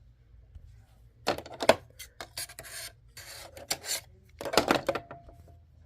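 Hands handling small objects at close range: several short bursts of rubbing and scraping, mixed with sharp clicks.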